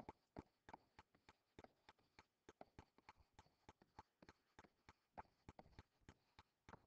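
Faint, irregular clicks and taps of a stylus writing on a tablet screen, a few a second.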